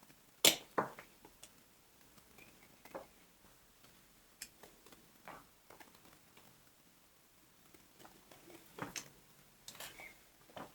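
Press studs and plastic buckle clips on a waxed-canvas and leather tool roll being undone as it is opened: a sharp snap about half a second in, then scattered soft clicks and handling noises, with a few more snaps near the end.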